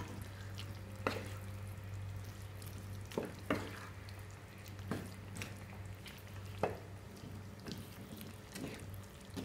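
Wooden spatula stirring pieces of mutton liver in their own released juices in a nonstick frying pan: soft wet stirring with several light, scattered knocks of the spatula against the pan.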